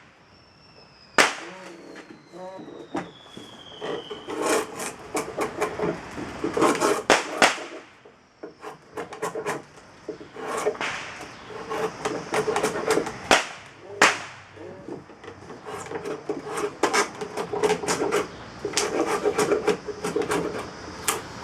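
A drawknife shaving a green black locust hatchet handle blank on a shave horse. It makes runs of short scraping cuts with sharp knocks as the blade bites into the wood.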